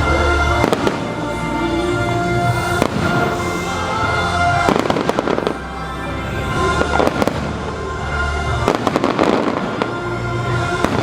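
Fireworks finale: repeated bursts of bangs and crackling over music playing throughout.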